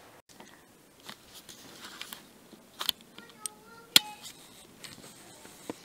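Quiet room with a few soft, scattered clicks and taps, the sharpest about three and four seconds in.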